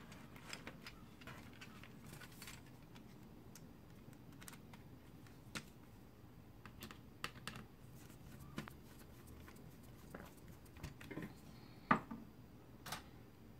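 Faint, scattered light clicks and taps from a car radio's LCD circuit board and its plastic front-panel frame being handled and pressed, with one louder click near the end.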